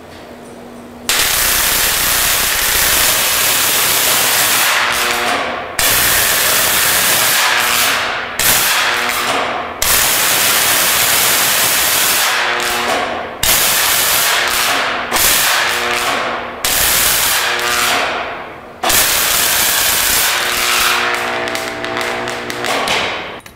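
A 75,000-volt, 1-amp DC arc burning onto a bottle of bubble solution: a loud hissing buzz with a hum underneath. It strikes suddenly about a second in, drops out and re-strikes several times, and cuts off just before the end as the bottle is blown apart and the solution sprayed.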